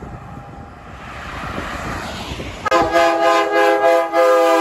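Highway traffic noise from a passing vehicle. Then, about two and a half seconds in, a semi truck's air horn sounds loudly, a chord of several notes held steady.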